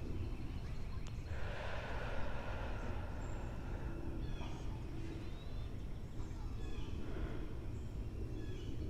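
Faint birds chirping in short, scattered calls over a steady low hum, with a soft rush of breath about a second in.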